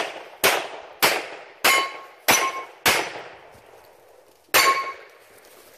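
Pistol shots fired at steel targets: five shots in quick succession about 0.6 s apart, then a pause and one more. Several shots are followed by a brief ring of struck steel, the sign of a hit.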